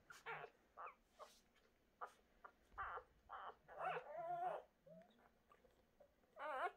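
Newborn puppies, about a day and a half old, squeaking and whimpering in a string of short, high cries, with a longer wavering cry near the end.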